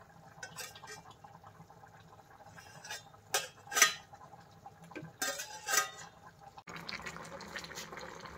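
A metal spoon clinks and scrapes against a metal plate and pot in several sharp strikes as pieces of food are pushed into the pot. About two-thirds in, this gives way to the steady bubbling hiss of a pot boiling on a gas stove.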